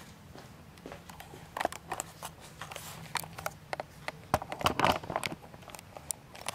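Handling noise from a handheld camera being carried: scattered clicks, knocks and rustles, busiest about four to five seconds in, over a faint steady low hum.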